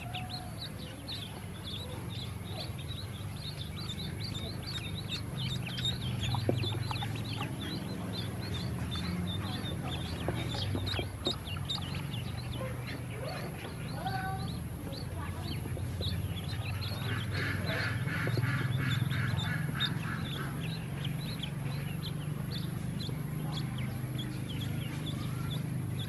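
A group of ducklings peeping constantly in high, short calls. About two-thirds of the way through, a louder buzzy, rapidly pulsing call runs for a few seconds over the peeping.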